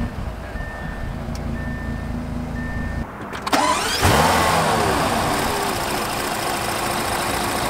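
Bentley Bentayga's twin-turbocharged 6.0-litre W12 engine idling just after start-up, with a faint repeating beep over it. After a short break a little past three seconds, the revs jump up with a loud flare and then fall back into a steady idle.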